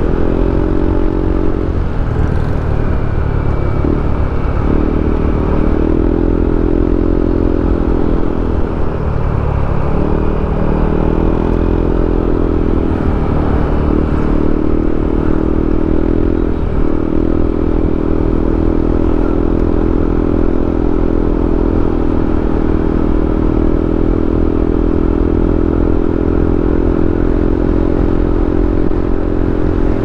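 Motorcycle engine running while riding at speed, with a strong low rumble underneath. The engine note drops out and shifts briefly a few times in the first half, then holds steady.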